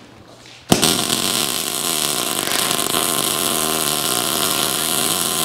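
Electric arc welding on steel: the arc strikes about three-quarters of a second in and then crackles and hisses steadily.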